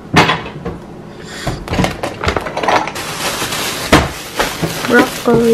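Plastic grocery bag crinkling as produce is handled, with scattered knocks and taps from packaging being moved and set down; the crinkling grows steady about three seconds in, with one sharper knock shortly after.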